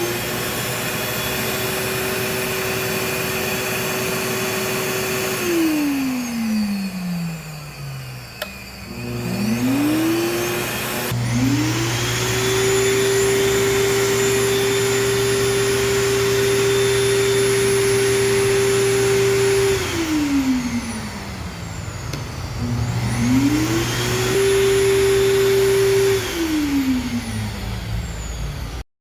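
Blower run in three bursts. Each time it speeds up to a steady high whine, holds there, then winds down over a couple of seconds. The first burst is already running at the start, the long middle one starts about eleven seconds in, and the last is short, near the end.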